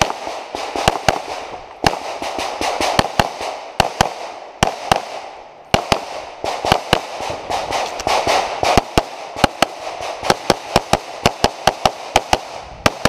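Rapid pistol fire from a compensated .38 Super STI open-division race gun: dozens of sharp shots in fast pairs and strings, with short breaks between strings.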